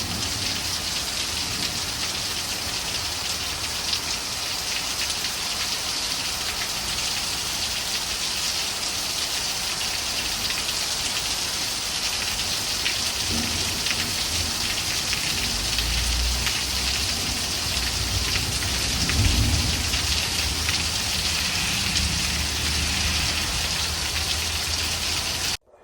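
Steady heavy rain falling and pattering on surfaces, a dense even hiss. A low rumble builds in the second half, strongest about three quarters of the way through, and the sound cuts off abruptly at the very end.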